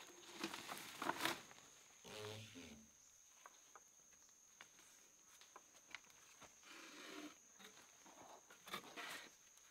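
Quiet forest ambience: a steady high insect whine with scattered light clicks and rustles, and a short low pitched sound about two seconds in.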